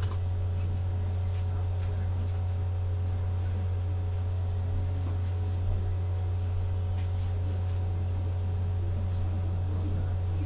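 Steady low hum with a few faint higher steady tones over it, broken only by a few faint clicks.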